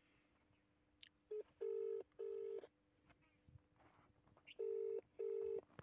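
Phone ringback tone heard through a mobile phone's speaker: two double rings, each a pair of short low beeps, about three seconds apart. It is a call to the L&T M-Power Pro mobile pump starter's number, ringing before the starter answers.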